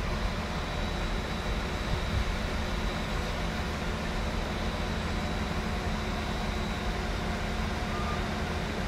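Regional passenger train pulling slowly into a station platform, making a steady low running hum.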